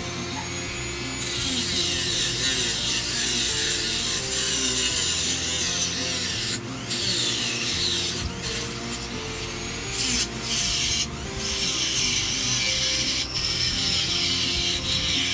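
Sanding a knife part: a steady abrasive hiss starts about a second in and runs on, broken by a few brief pauses, over background music.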